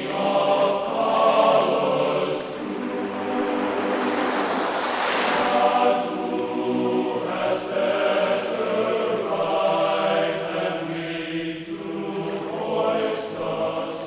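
Background music: a choir singing sustained notes, with waves washing on the shore underneath, strongest about five seconds in.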